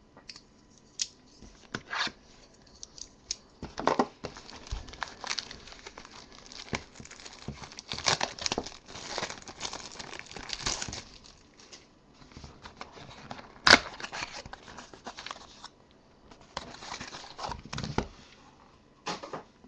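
Tearing and crinkling as a wrapped mini box of foil trading-card packs is torn open by hand and the packs are pulled out, with one sharp snap about two-thirds of the way through.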